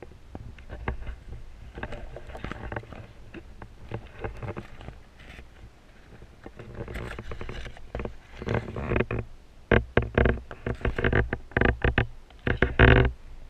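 Muffled underwater sound picked up through a GoPro's waterproof housing: low rumbling water movement with irregular knocks and clicks, growing louder and more frequent in the last several seconds.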